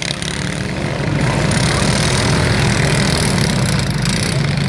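Several riding lawn mower engines running together in a steady, loud drone as the mowers drive around the derby arena.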